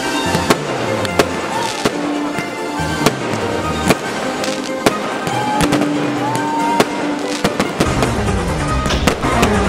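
Fireworks display: aerial shells bursting with sharp bangs about once a second, over music. In the last couple of seconds the bangs and crackles come thick and fast.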